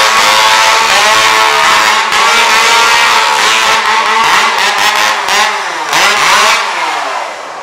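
Two-stroke chainsaw engine revving hard at full throttle, its pitch rising and falling again and again, then winding down in the last second.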